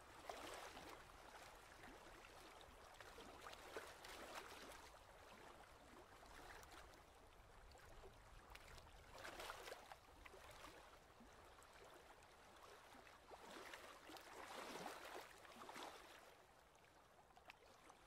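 Near silence: a faint, even rushing noise that swells and fades every few seconds.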